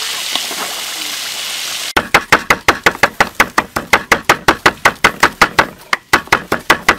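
Whole fish frying in a pan of hot oil, a steady sizzle. About two seconds in it cuts to a cleaver chopping dried red chillies on a wooden board: sharp, rapid knocks about five a second, with a brief pause near the end.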